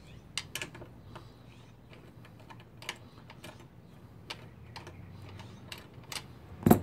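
Light, irregular metallic clicks and ticks of a hand socket on an extension turning a bolt out of a GY6 scooter's aluminium CVT cover, and the loosened bolt rattling as it is handled. A single sharper knock comes near the end.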